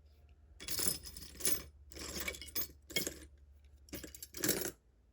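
Metal lock picks clicking and scraping against the pins inside a Ruko 600 pin-tumbler lock fitted with gin-milled pins, in about five short bursts, as the pins are worked with the core held at a set.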